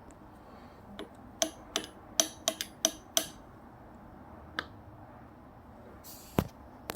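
Knocking on a door: a quick run of about seven sharp, clicky knocks over about two seconds, then a single knock and, near the end, a short rustle and another knock.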